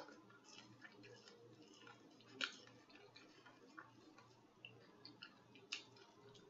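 Faint mouth sounds of someone eating: scattered wet clicks and smacks while chewing, with louder smacks about two and a half seconds in and near six seconds. A faint low pulse repeats about two to three times a second underneath.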